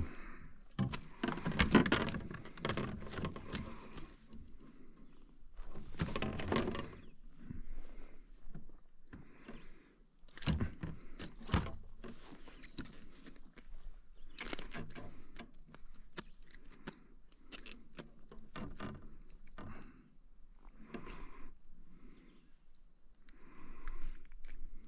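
Water splashing and knocks as a small smallmouth bass is handled and unhooked in a rubber-mesh landing net at the side of a kayak, loudest in the first few seconds and again around six seconds in. A steady high drone of insects runs underneath.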